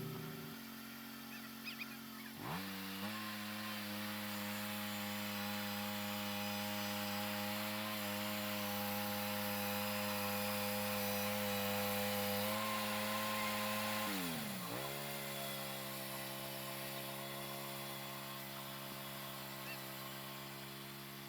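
Gas engine of a portable sawmill running steadily at high speed while cutting a cedar log. It revs up a couple of seconds in, dips briefly about two-thirds of the way through, and settles back at a slightly lower speed.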